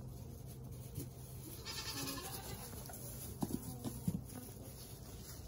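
Newborn Nigerian dwarf goat kids giving a few short, soft bleats, with two sharp knocks a little past halfway.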